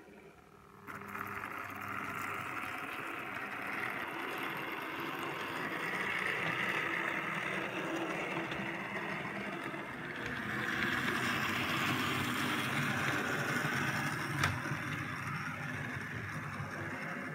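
OO gauge model diesel railcar running on the layout's track: a steady mechanical running sound that swells and fades, with one sharp click near the end.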